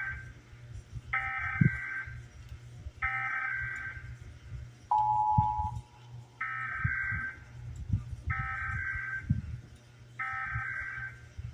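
Emergency Alert System SAME header: three screeching digital data bursts about a second each, then a brief two-tone EAS attention signal, then another set of three header bursts. A steady low hum runs underneath.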